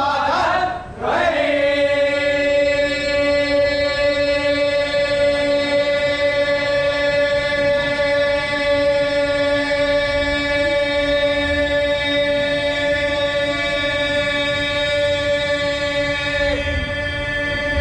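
A brief moment of chanting voices, then one long note held steady in pitch with many overtones for about fifteen seconds; it wavers briefly near the end and carries on.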